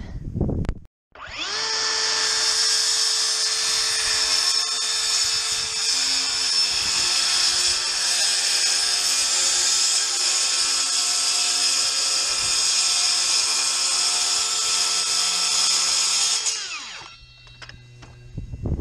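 DeWalt cordless circular saw spinning up about a second in, running steadily through a plywood sheet for about fifteen seconds, then winding down near the end.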